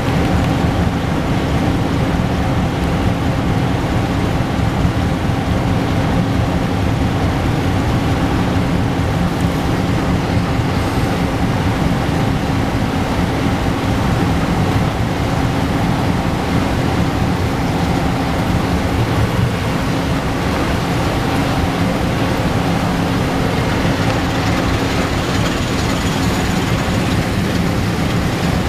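Inland cargo barge's diesel engine running steadily, a low drone with a few held tones over even noise.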